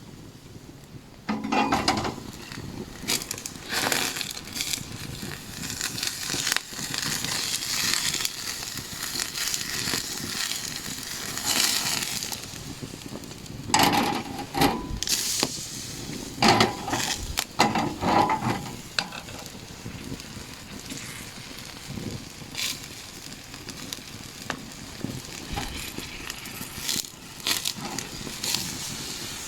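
Food sizzling and crackling over a campfire, with irregular knocks and clatters of cooking gear being handled.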